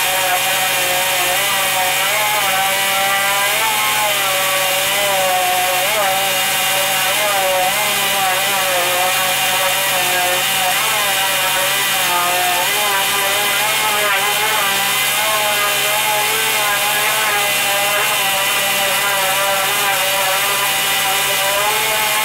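Dual-action (DA) sander running continuously with its pad scuffing the paint of a car hood: a steady whine whose pitch wavers slightly as the pad is pressed and moved across the panel.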